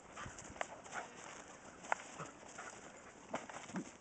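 Faint scattered footfalls and scuffs of a German shepherd's paws and a handler's feet on dry grass and dirt during bite-sleeve work, with a few sharp knocks, the loudest about two seconds in.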